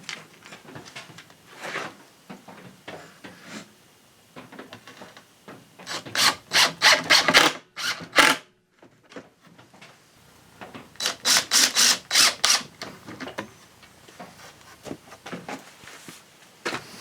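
Quick back-and-forth rasping strokes on wood, in two runs of about half a dozen strokes each, a few seconds apart, with lighter scraping and handling noise between.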